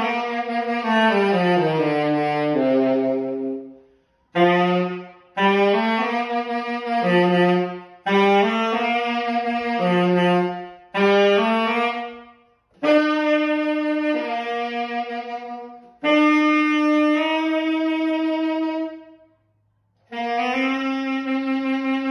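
Solo tenor saxophone playing a slow melody in short phrases of a few held notes, with brief pauses for breath between phrases.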